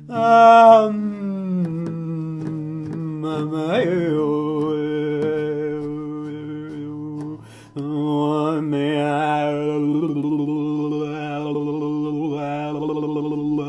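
A man's voice chanting long held low notes: the first slides down in pitch at the start and is then held, and after a short break for breath about seven and a half seconds in, a second long steady note follows with its vowel shifting.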